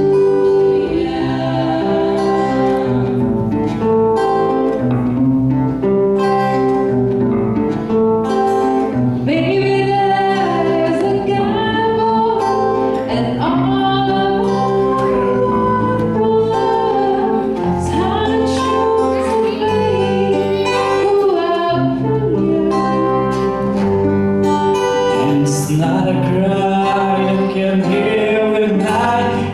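A choir singing with accompaniment from acoustic guitars, bass guitar and keyboard: a slow song with sung lines held and gliding over steady chords.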